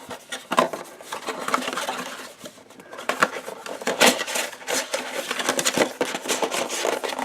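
Foil trading-card packs and a cardboard box being handled: a run of crinkles, rustles and light knocks.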